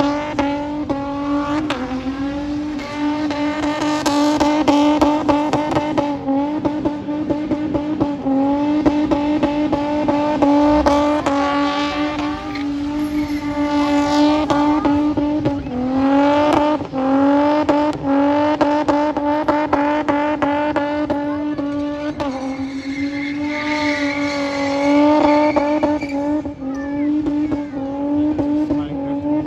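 Holden Commodore wagon's engine held at high revs through a burnout, the rear tyres spinning and squealing in the smoke. The revs dip briefly and climb back several times.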